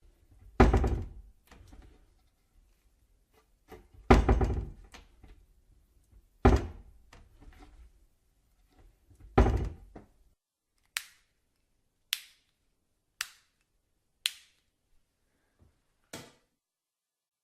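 Four heavy thuds a few seconds apart, each trailing off, followed by five short, sharp knocks about a second apart.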